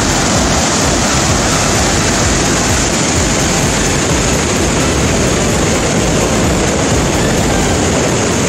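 Whitewater of a waterfall pouring over rocks: a loud, steady rush of water.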